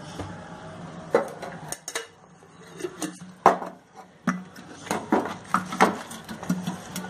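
Metal kitchenware clinking and knocking around a kadhai: about ten sharp, irregular clinks, the loudest about three and a half seconds in, over a faint steady hum.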